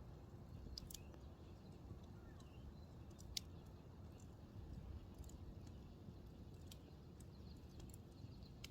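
Burnt-down campfire embers burning quietly, with a few scattered sharp crackles and pops, the loudest about three and a half seconds in, over a faint low rumble.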